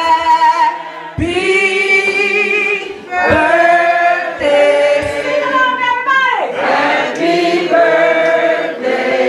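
A woman singing into a microphone through a PA speaker, holding long notes with a wavering vibrato and short breaths between phrases.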